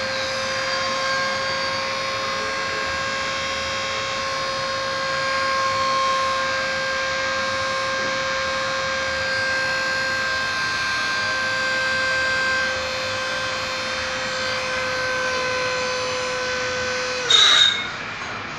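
Hydraulic power unit of a direct-push soil sampling probe rig running steadily under load with a constant whine while the sampler is pushed into the ground. About seventeen seconds in, the whine sags in pitch and cuts off, followed by a brief loud burst of noise with a high ring.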